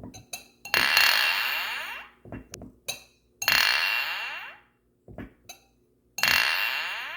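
Glass clinking: three ringing clinks about three seconds apart, each fading out over a second or so, with light little taps in between.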